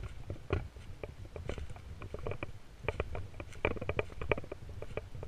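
Footsteps crunching and rustling through wet fallen leaves on a forest floor, short irregular crunches all the way through, over a steady low rumble.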